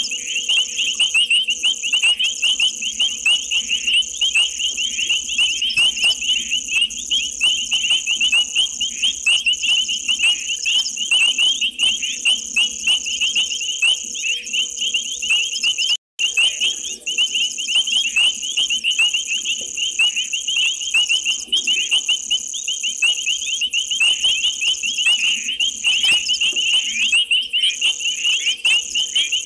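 Night chorus of frogs and insects: many frogs calling in a dense mass of rapid, high-pitched chirps over a steady, higher insect trill, with a faint steady low tone beneath. The whole chorus cuts out for an instant about halfway.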